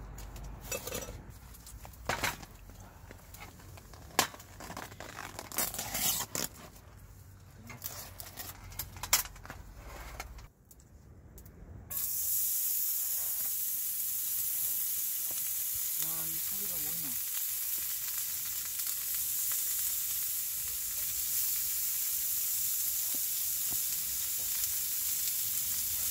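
Frozen pork belly slices sizzling in a skillet on a portable butane gas stove: a loud, steady sizzle that starts suddenly about halfway through as the meat hits the hot pan. Before it, scattered clicks and knocks of things handled on the table.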